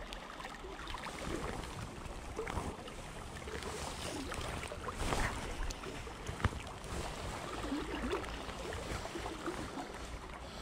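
River water lapping and rippling close around a wading angler, with a few small clicks of rod and line handling, the sharpest about six and a half seconds in.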